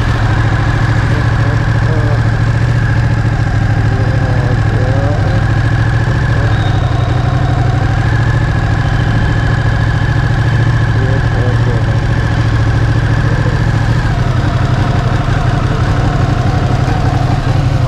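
Ducati Panigale 959 superbike's V-twin engine running steadily with an even, unchanging note.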